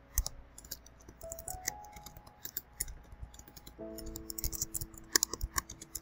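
Computer keyboard keys clicking in short, irregular runs of typing, over soft background music with long held notes.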